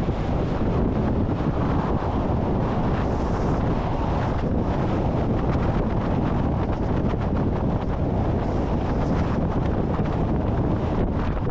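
Strong wind buffeting the microphone, a steady heavy rush with most of its weight in the low end.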